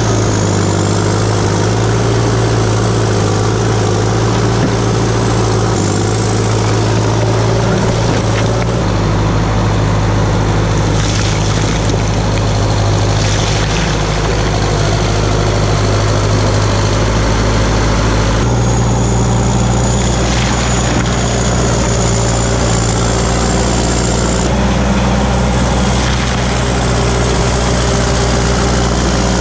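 Diesel engine of a crawler track loader running steadily as the machine works. Its note steps to a new pitch twice, about a third and about two-thirds of the way through. A thin, high whine sits above the engine.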